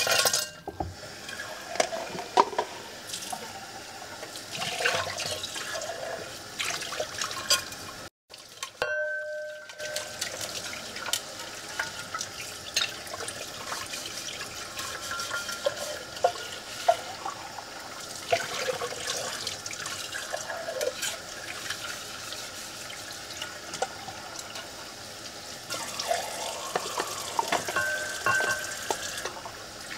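Tap water running and splashing into a ceramic sink while a metal tumbler is rinsed and scrubbed, with many small knocks and clinks as it is handled. The sound breaks off for an instant about eight seconds in.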